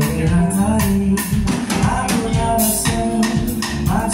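Live band playing with a steady beat: a male singer over an electric keyboard and a drum kit.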